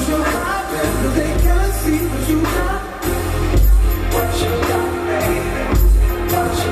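A recorded song playing: singing over a heavy bass line.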